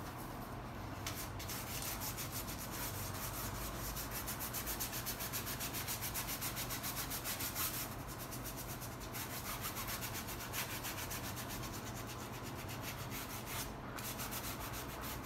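Large paintbrush scrubbing acrylic paint across canvas in quick back-and-forth horizontal strokes, bristles rasping on the textured surface. Brief lulls about eight and fourteen seconds in.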